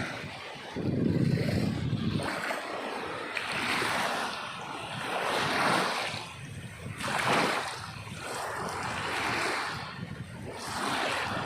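Sea waves surging and receding, with a new swell of surf about every two seconds.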